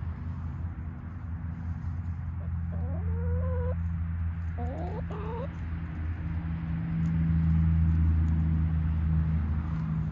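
Chickens calling twice, short wavering calls a couple of seconds apart, over a steady low rumble that grows louder about two-thirds of the way through.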